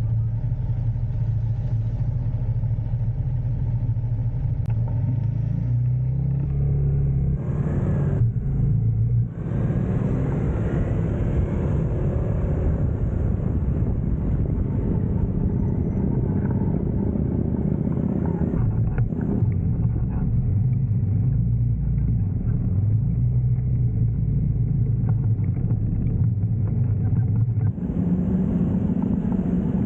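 Aveta Vanguard 250 motorcycle engine running steadily while riding, under wind and road noise; the sound shifts briefly about eight seconds in and again near the end.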